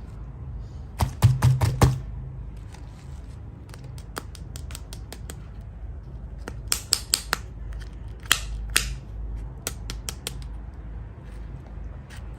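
Small objects being handled by hand, giving clusters of sharp clicks and crackles, the loudest cluster about a second in and another past the middle, with scattered single ticks over a steady low hum.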